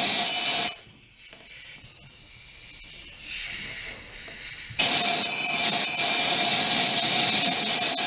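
Compressed air blasting from an air blow gun into a small tubeless tiller tire with the valve stem out, trying to seat the bead. The loud hiss cuts off about a second in, leaving a weaker hiss, then comes back loudly about five seconds in.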